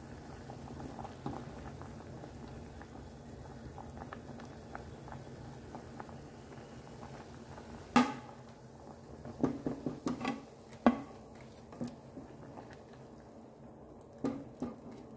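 Water boiling steadily in a stainless steel saucepan with tomatoes and dried red chillies, cooked until the tomato skins peel off. From about halfway, a slotted spoon knocks and scrapes against the pan several times as the soft tomatoes are lifted out.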